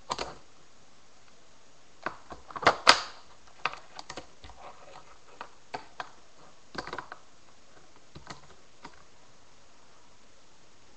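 Tech Deck fingerboard clacking and tapping against the tabletop and a plastic box as fingers work it: scattered sharp clicks, with a loud quick cluster about two to three seconds in and lighter single clacks after.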